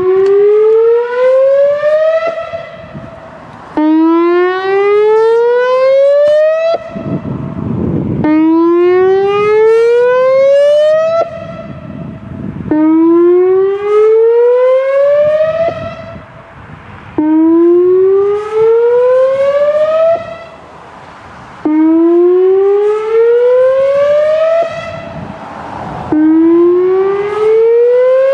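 Whelen Vortex outdoor warning siren sounding its whoop signal: a loud tone that rises in pitch over about three seconds, then cuts off sharply. The whoop repeats about every four and a half seconds.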